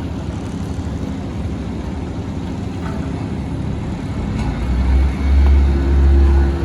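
Road roller compacting freshly laid asphalt: a steady low engine rumble that grows much louder about five seconds in.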